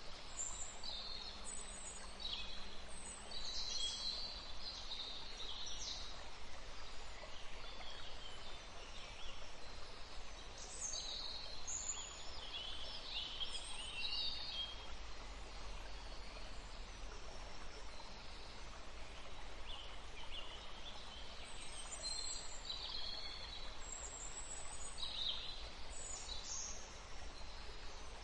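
Nature ambience: small birds chirping in scattered bursts of short high calls over a steady background hiss.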